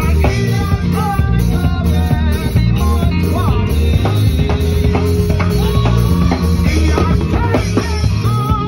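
Live band music: drums and bass with a steady beat behind a man singing into a microphone, loud through the sound system.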